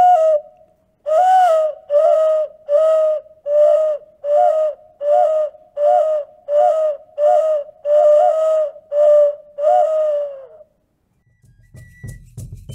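Classic-period Maya double-chambered clay toad ocarina blown in a run of short hooting notes, about two a second, each with a small upward flick in pitch, imitating a toad's call.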